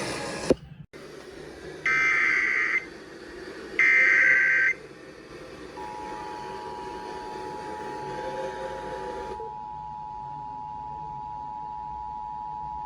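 Emergency Alert System signal off the air: after a click, two short bursts of warbling data tones from the SAME header, then about six seconds in the steady two-tone EAS attention signal starts and holds, announcing a flash flood warning.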